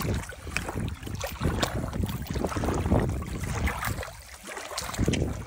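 Water sloshing and splashing at the shoreline as a small crappie is let go into shallow, weedy water, with wind buffeting the microphone.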